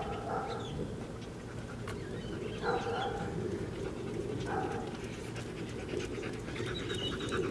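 Husky panting as it walks up on a leash, over a steady low background hum.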